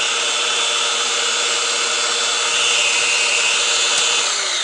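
Corded Milwaukee 1-3/4" SDS Max rotary hammer's motor running at a steady speed with its trigger locked on, a high whine without separate blows, starting to wind down near the end.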